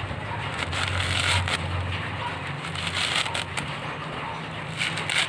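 Dry coconut husk fibre being torn apart and crumbled by hand into a plastic sack: a dense, crackling rustle of many small snaps, with a low steady hum underneath.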